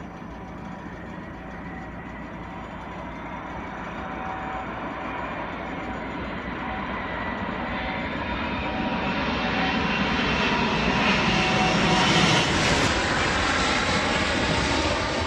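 Airplane engines growing steadily louder as the aircraft approaches, with a steady whine over the rush of noise, loudest about twelve seconds in.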